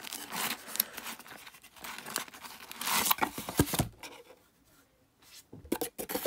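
Trading cards in plastic sleeves rustling and scraping as fingers work through them in a cardboard mailer box. There is a quieter spell after about four seconds, then a few short clicks and knocks near the end as the box's flap is handled.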